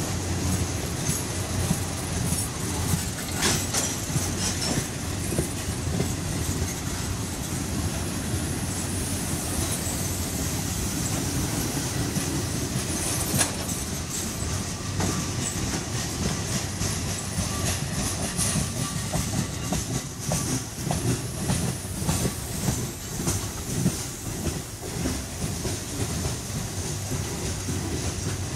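Freight train of boxcars and tank cars rolling past close by: a steady rumble of wheels on rail, with wheel clatter and occasional sharp knocks.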